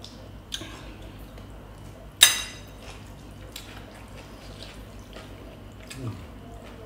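Table eating sounds: a few light clicks of a spoon and dishes, with one sharp ringing clink of a spoon against a bowl about two seconds in.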